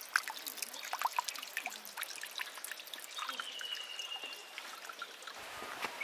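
Shallow stream water trickling and splashing over rocks, with many small irregular drips and splashes; the stream is running low.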